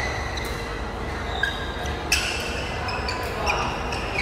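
Badminton rally: about three sharp pops of rackets striking the shuttlecock, the loudest about two seconds in, with sneakers squeaking on the court between shots.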